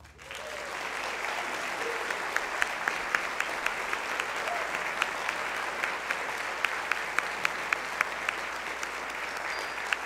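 Concert audience applauding as the music ends, a steady wash of clapping with sharp single claps from close by standing out several times a second through the middle.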